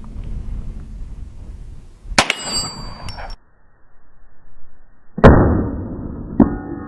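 A .50 AE round from a Desert Eagle pistol strikes a stainless steel plate, which rings with a high metallic clang. This is followed by a louder, duller report and then a second strike, after which the plate rings with several steady tones.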